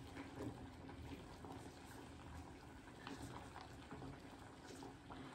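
Faint, wet squeezing of lemon pieces in gloved hands as the juice drips out, with a few light ticks.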